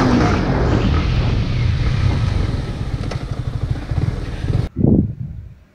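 Yamaha MT-15's 155 cc single-cylinder engine running as the bike rides along, its clear drone easing into a rougher, pulsing low rumble with wind hiss over it. About three-quarters of the way in, the sound cuts off abruptly, then a short low surge comes and fades away.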